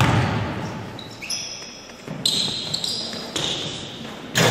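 A basketball bouncing and sneakers squeaking on a gym's hardwood court, echoing in the large hall, with a loud knock near the end.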